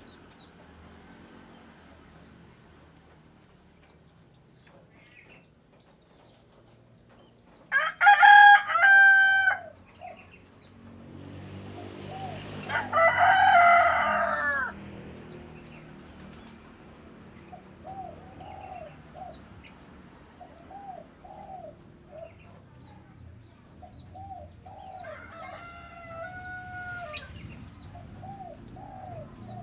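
Roosters crowing: two loud crows, about 8 seconds and 12 seconds in, and a fainter, more distant crow near the end. Short repeated clucking or chirping calls come between them.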